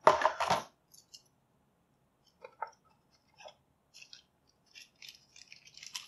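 Small steel set screws clinking inside a plastic bag as the bag is handled, with plastic rustling. The loudest clatter comes right at the start, followed by scattered light clicks.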